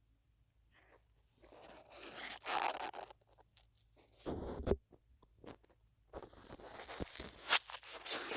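Close scratchy rubbing and crunching right against a smartphone microphone, in three spells with sharp clicks among them. The second spell, about halfway in, is short and heavy with a deep thud-like rumble.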